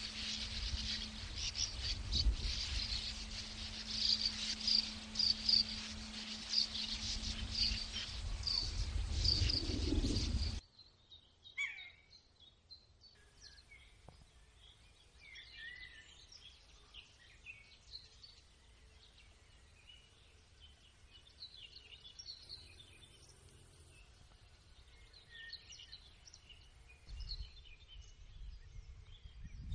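Sand martins calling at their burrow colony, a busy run of repeated high chirps over low wind rumble and a steady low hum. About ten seconds in this cuts off abruptly to much quieter scattered songbird calls.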